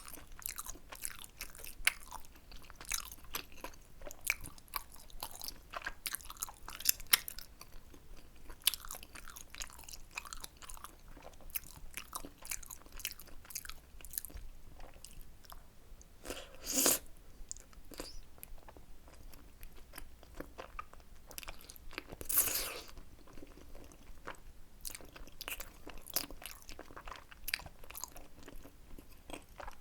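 Close-miked chewing and biting of tteokbokki, chewy rice cakes in a thick spicy sauce: a steady run of soft, wet, sticky clicks and smacks. Twice, about halfway and again a little later, a louder, longer noise stands out above the chewing.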